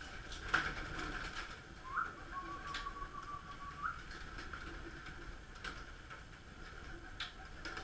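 Pigeons cooing in a loft. Scattered sharp clicks are heard as a feed trough is handled, and a steady whistle-like tone is held for about two seconds near the start.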